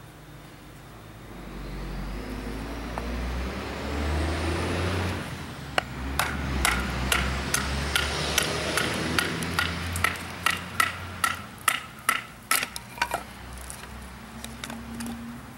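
A wooden baton strikes the spine of a Bark River Bravo 1.5 knife again and again, driving the blade down through a stick to split it for a bow-drill hearth board. The knocks come about twice a second from around six seconds in until about thirteen seconds. Before them a low rumble with a rising whine swells and fades.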